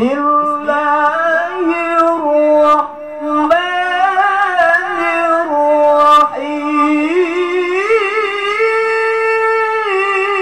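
A man reciting the Qur'an in the melodic tilawah style into a microphone, drawing out long ornamented notes in Arabic. He breaks off briefly about three seconds in, then holds long notes that climb higher in the second half.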